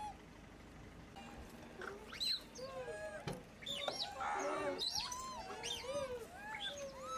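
A macaque troop calling: many short rising-and-falling coos and squeals that overlap, growing busier and louder about four seconds in.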